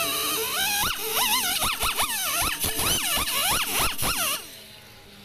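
Handheld pneumatic buffer grinding the rubber inner liner of a truck tire to rough it up around a sidewall tear before a patch goes on: a loud hissing whine whose pitch swoops up and down over and over. It cuts off about four seconds in.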